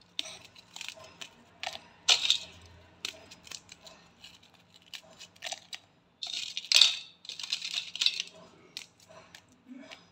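Chocolate cream biscuits snapped by hand and the pieces dropped into a stainless steel mixer-grinder jar: a run of sharp clicks and crisp snaps, with a few louder crunchy bursts about two seconds in and again around six to eight seconds in.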